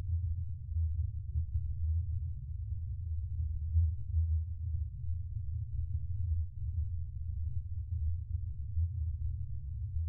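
Spaceship ambience sound effect: a deep, steady hum with nothing above it, wavering slightly in loudness.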